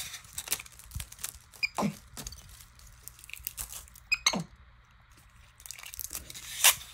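Clear Scotch tape being handled, crumpled and chewed by a capuchin monkey: scattered clicks and crinkles, two short squeaks that fall quickly in pitch, and a longer, louder rasp near the end as tape is pulled at the dispenser.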